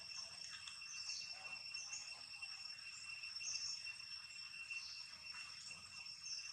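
Faint steady insect chorus, a constant high buzz with short high chirps recurring over it about once a second.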